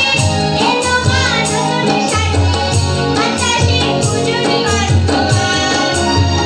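Live song: a woman singing over tabla and harmonium accompaniment, the tabla giving regular low strokes under the melody.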